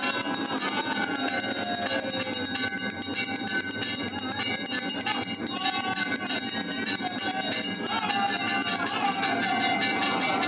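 Temple bells ringing continuously during an aarti, a dense clanging din with voices chanting over it. About nine seconds in, a fast, regular beat joins in.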